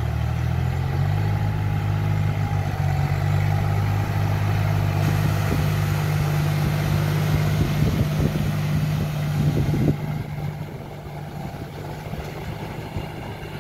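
Tractor's diesel engine running steadily under load as it drags cage wheels and a puddling tiller through a flooded paddy field, with a few knocks and splashes. It gets quieter about ten seconds in.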